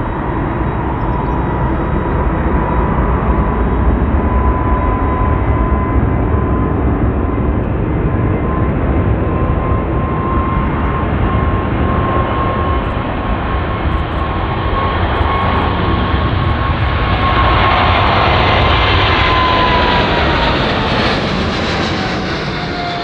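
Boeing 777F freighter's twin GE90 turbofans at takeoff power through the takeoff roll and liftoff: a steady loud jet roar with a high whine. Near the end the whine drops in pitch as the aircraft goes by close overhead.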